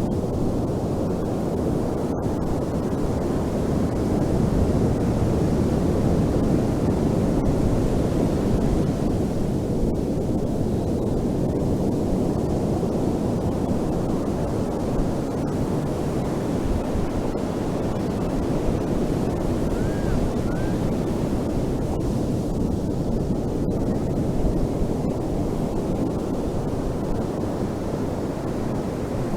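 Ocean surf on a beach: a continuous low rush of breaking and washing waves, swelling slightly a few seconds in.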